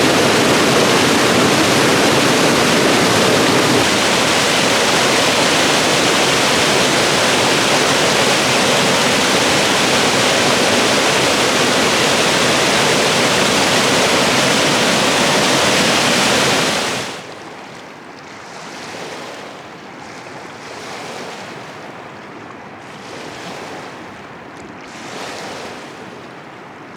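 Rushing mountain water, a steady loud rush. About seventeen seconds in it cuts off abruptly to a much quieter hiss with gusts of wind.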